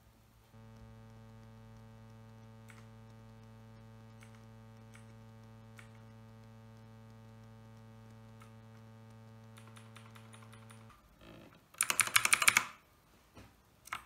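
Clicky mechanical keyboard with Outemu Blue switches: a few scattered key clicks over a steady electrical hum, then, about twelve seconds in, a loud rapid flurry of key presses lasting under a second, and one more click near the end.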